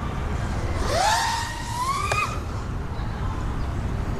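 5-inch FPV quadcopter's brushless motors whining. The pitch sweeps up sharply about a second in, then climbs again toward the two-second mark as the throttle is pushed. Under it runs a steady low rumble.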